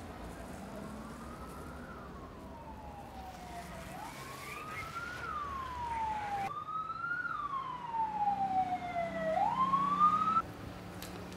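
Emergency-vehicle siren wailing, each cycle rising quickly and falling slowly, growing louder over several seconds, then cut off abruptly about a second before the end.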